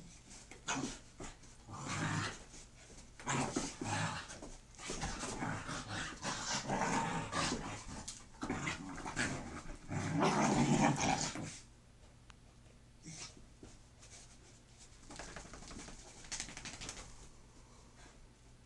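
Two dogs play-fighting, growling in irregular bursts, loudest about ten seconds in. The growling stops at about eleven and a half seconds, leaving only a few brief sounds.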